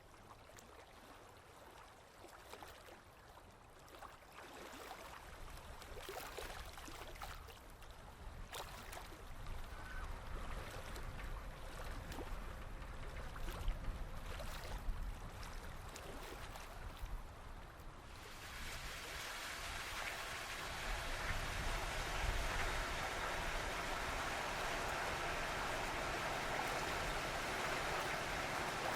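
Water lapping and splashing, with scattered light clicks. About two-thirds of the way through it changes suddenly to a louder, steady rush of water.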